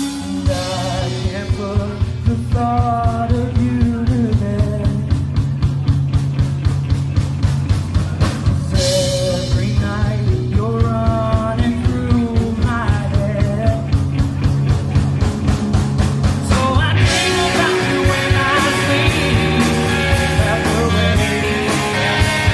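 Live rock band playing: a man singing over a steady drum-kit beat, bass and electric guitar. A cymbal crash comes about nine seconds in, and from about seventeen seconds the band gets fuller and brighter, with more cymbal.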